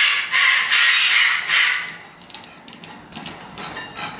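A parrot's harsh, repeated squawks for about the first two seconds, then quieter with a few faint clicks.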